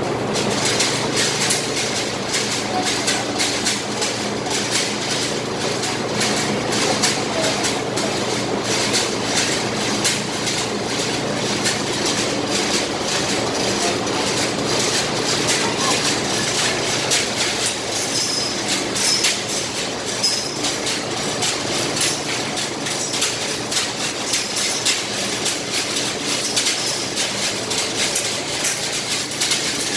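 Continual rapid metallic clicking and rattling, like a hand chain hoist's chain running through its block as a heavy blower is raised, over a steady low mechanical hum.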